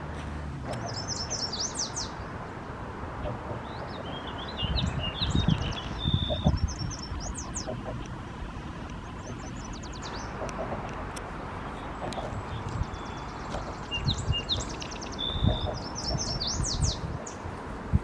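Songbirds singing: a phrase that opens on a clear held whistle and breaks into a quick jumble of high notes comes back about every few seconds, with other high chirps in between. Low bumps a few times under a steady background hiss.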